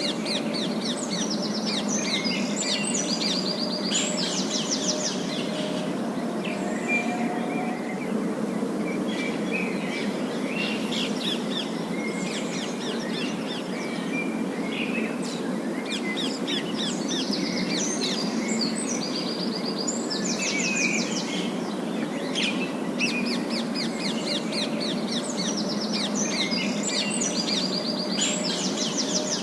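Parakeets chirping and chattering in bouts of rapid high twittering trills, pausing briefly between bouts, over a steady low background hum.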